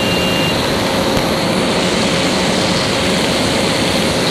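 KTM RC 200 single-cylinder engine held at steady high revs near top speed, about 140 km/h, buried in a loud, even rush of wind on the microphone.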